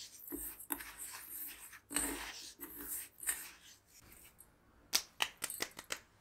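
Fingers rubbing lemon zest into granulated sugar in a stainless steel bowl: a gritty, scratchy rustle of sugar crystals. Near the end, pinches of the finished lemon sugar drop back into the bowl in a few sharp ticks.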